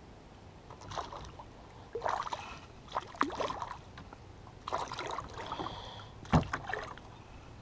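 Water splashing in short irregular bursts as a hooked smallmouth bass thrashes at the surface beside a kayak while being landed, with one sharp knock a little over six seconds in.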